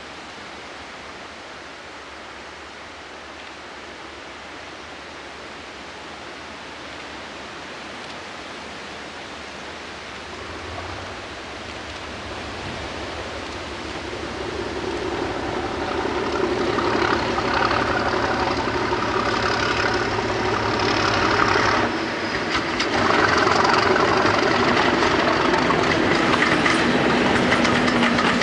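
British Rail Class 37 diesel locomotive, an English Electric V12, approaching with exhaust smoke showing and passing close by. Its engine note rises out of a steady rushing background from about a third of the way in and is loud for the second half. Near the end the coaches roll past with a clickety-clack of wheels over the rail joints.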